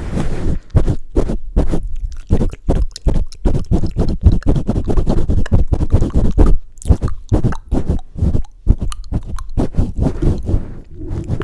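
Hands pumping and cupping over a close microphone: a rapid run of muffled thumps and whooshes, about two or three a second, with short dead gaps between them.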